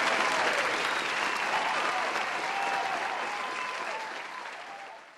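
Audience applauding and cheering, fading out near the end.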